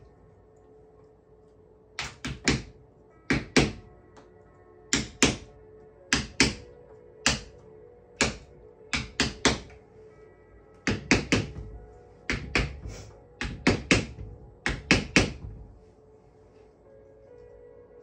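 A wooden mallet sharply tapping a wedge in quick groups of two or three, driving a glued spline into the groove around a pressed cane chair seat. The taps stop a few seconds before the end.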